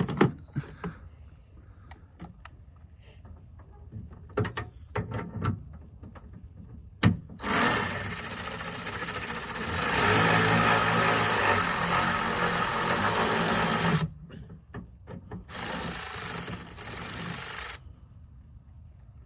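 Cordless electric ratchet running as it works fasteners loose, a long run of about six seconds and a second run of about two seconds. Scattered clicks and knocks of tools being handled come before it.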